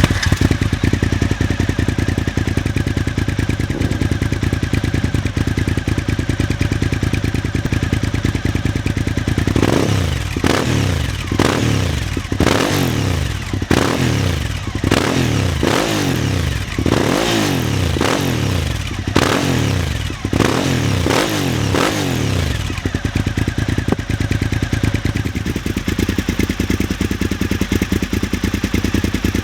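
2006 Suzuki SV1000 S V-twin engine through open, near-straight carbon exhaust pipes, idling steadily. It then takes about a dozen quick throttle blips in a row, each rev rising and falling, before settling back to idle.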